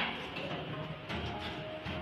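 Music playing, with the mechanical noise of an automatic cable harness crimping machine running underneath.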